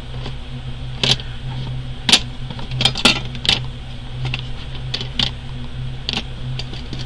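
Metal-bodied pens clicking and clinking against each other and a small metal tin as they are packed into it, in separate sharp clicks roughly a second apart, over a steady low hum.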